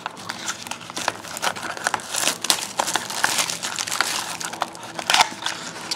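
Packaging crinkling and tearing as a sealed trading-card box is opened by hand, with many small clicks and rustles, densest in the middle.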